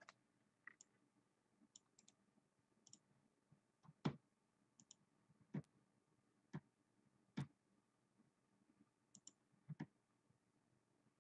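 Faint, scattered clicks of a computer mouse and keyboard, about five sharper clicks a second or so apart with fainter ticks between, as text is copied and pasted.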